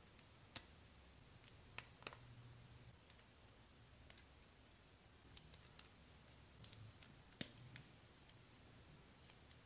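Jie Star plastic building bricks clicking as they are pressed together and handled: a few sharp snaps, the strongest about half a second in, near two seconds, and twice a little past seven seconds, with fainter ticks between.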